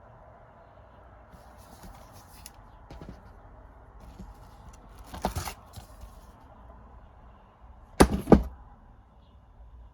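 Unboxing handling noise: rustling, then a few sharp knocks around the middle and two loud clacks in quick succession near the end, like plastic disc cases being handled and set down on a hard surface.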